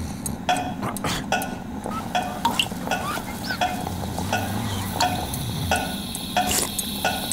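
A steady series of short clicks, about two or three a second, over a low hum.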